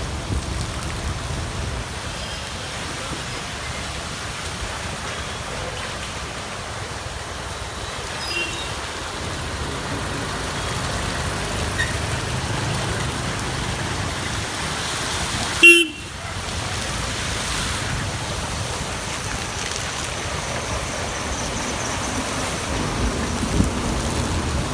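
Steady road traffic noise with an even hiss, and a short vehicle horn toot about two-thirds of the way through.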